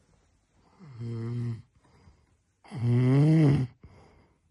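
A sleeping man snoring: two long snores with a low buzzing tone, the second louder, its pitch rising and then falling.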